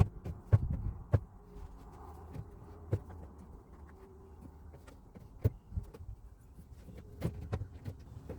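Scattered knocks and clicks of plastic push rivets and a wall panel being handled and pressed into place, over a low steady hum.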